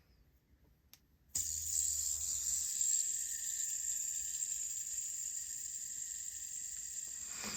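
PEI fidget spinner set spinning about a second and a half in, after a small click. Its bearing gives a steady high whirring hiss that fades slowly as the spin goes on.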